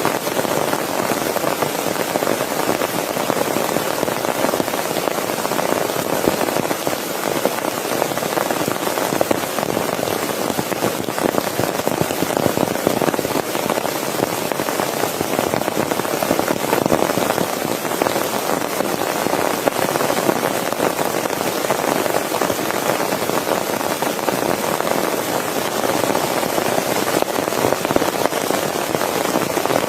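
Steady rain, an even dense hiss of countless small drop hits that does not let up.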